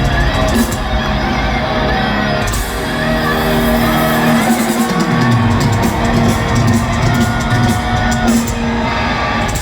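Live heavy metal band playing loudly at a stadium concert, with the crowd whooping and shouting over the music.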